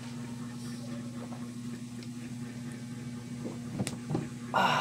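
Steady low hum under the faint sizzle of chopped garlic frying in oil in a wok over a gas burner, with a few light clicks and a short louder burst near the end.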